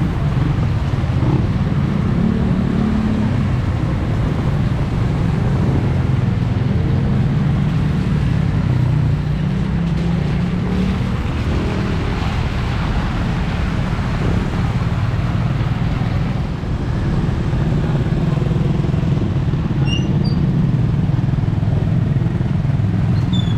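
A motor vehicle engine running close by, steady throughout, over a constant background hiss.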